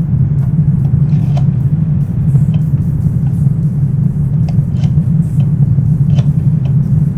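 Chimney fire roaring: a loud, steady low rumble with faint scattered crackles.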